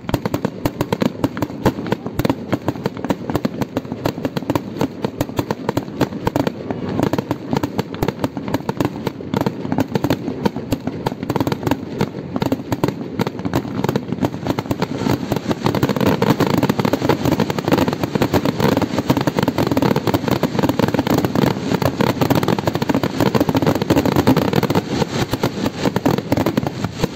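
Fireworks display: a dense, unbroken crackle of bursts, many a second, growing louder about halfway through.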